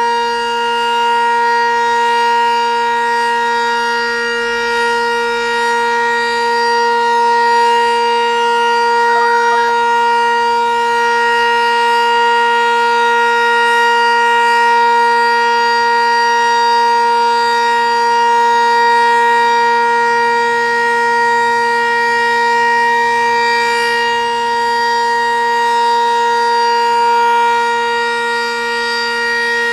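Federal Signal Sentry 10V2T dual-tone rotating outdoor warning siren sounding a steady alert signal: one held chord with no rise or fall in pitch, its loudness swelling and fading slightly as the siren rotates.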